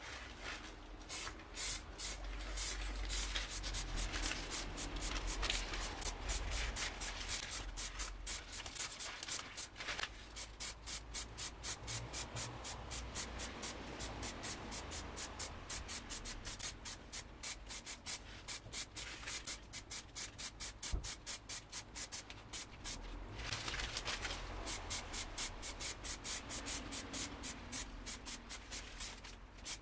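Aerosol spray paint can hissing in a rapid series of short bursts, about three a second, as a metal tool is coated grey, with brief breaks about ten seconds in and again later.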